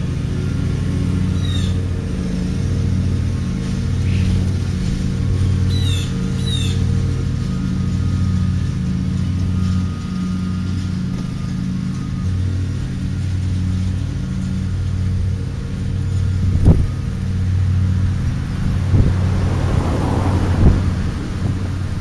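A steady low engine hum that swells and fades in a slow pulse, with a few short falling bird chirps in the first seven seconds. In the last few seconds come several sharp thumps and a rising rustle.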